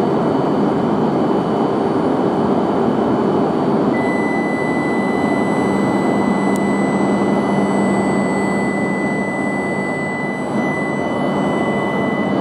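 E5 series shinkansen moving slowly along the station platform: a steady rumble of the train, with a steady high whine joining about four seconds in.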